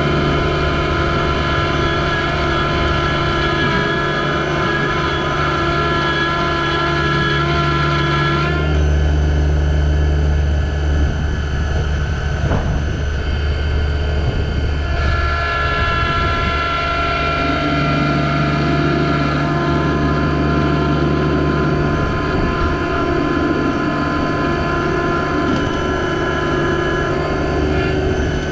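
Yanmar SA324 compact tractor's three-cylinder diesel engine running steadily. Its note changes about a third of the way in and goes back to the earlier sound about halfway through.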